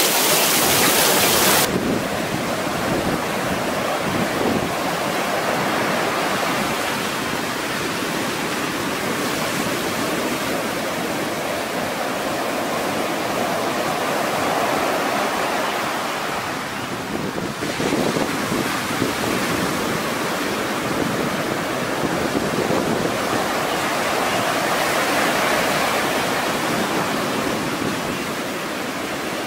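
Heavy rain hissing for the first second and a half or so, then surf breaking and washing up a sandy beach in a steady, surging rush.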